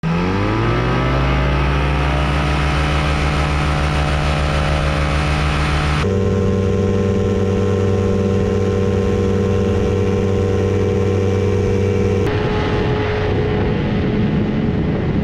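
Quad City Challenger light aircraft's engine revving up from low speed in the first second, then running steadily at high power with a strong, even buzz. The engine note changes abruptly twice, at about six and twelve seconds, and more rushing noise mixes in near the end.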